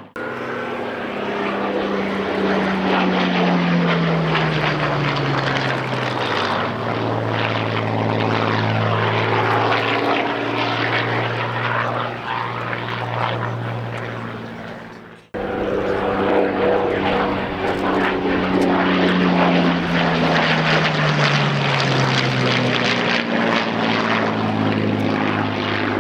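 Piston-engined Spitfire and Hurricane fighters flying past, their propeller engines running loud with a falling pitch as they go by. The flypast is heard twice, with an abrupt cut in between about halfway through.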